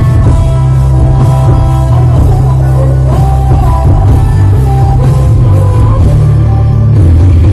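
Loud dance-performance music played over a stage sound system, with a heavy steady bass and a voice singing over it.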